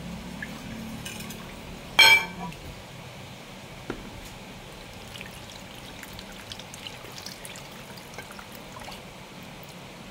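A glass mixing bowl clinks once with a short ring about two seconds in, then thick cake batter is poured from it through a plastic mesh sieve, splashing and dripping softly.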